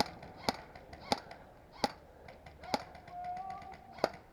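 Six sharp, irregular snaps of airsoft gunfire across an outdoor field, with a faint brief tone between the last two.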